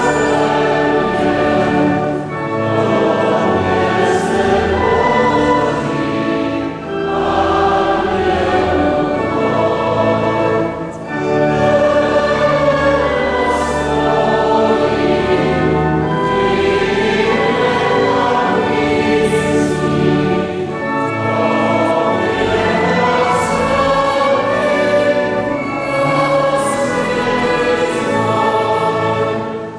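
Church choir singing a hymn in sustained phrases, with short breaks between phrases.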